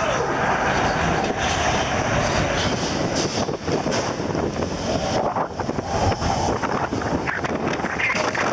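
Roller coaster heard from a riding car: wind rushing over the microphone along with the rumble and clatter of the train running on its steel track.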